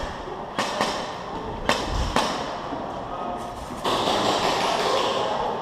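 Four sharp snaps of airsoft gunfire in the first couple of seconds, then a steady rush of noise for the last two seconds.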